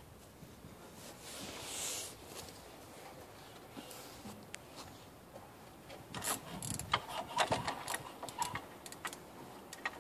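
Light knocks and clattering of a toddler crawling on a wooden playset deck and handling a small plastic toy truck, a quick irregular run of clicks through the second half. Before that, a brief soft rustle.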